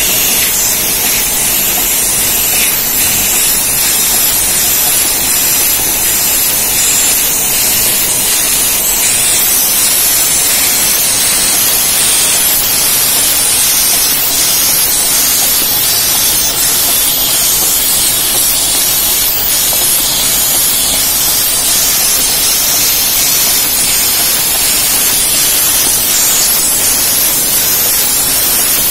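Lollipop-making machinery running steadily: a loud, even hiss-like din that is strongest in the highs and never lets up.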